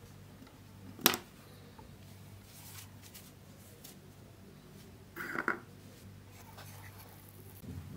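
Plastic sand-toy handling on a wooden table: a sharp click about a second in, then a short clatter about five seconds in as a small plastic castle mould is set down. A low steady hum runs underneath.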